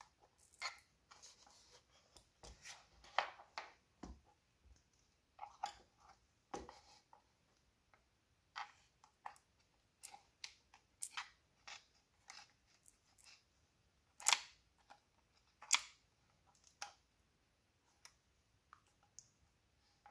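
Nylon spudger prying and scraping at taped-down parts inside a first-generation iPad's opened aluminium case: irregular small clicks, scrapes and crackles as tape and connectors are worked loose, with two sharper clicks about two-thirds of the way through.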